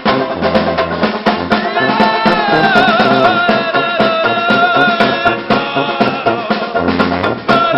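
Live band music with a drum kit keeping a steady, busy beat. A held, wavering melody line rides over it from about two seconds in until past five seconds.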